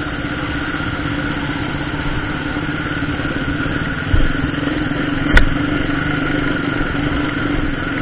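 Motorcycle engine running steadily at low speed, heard from the rider's seat. A low thump about four seconds in and a sharp knock about a second later.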